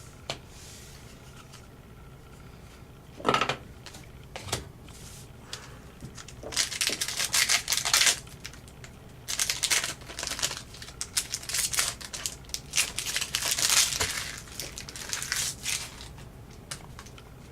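A foil trading-card pack wrapper crinkling and tearing as it is opened, in dense clusters for about ten seconds, after a few scattered clicks of card handling.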